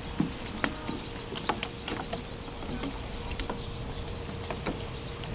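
Irregular light clicks and taps, with insects chirping high and fast and a faint steady hum.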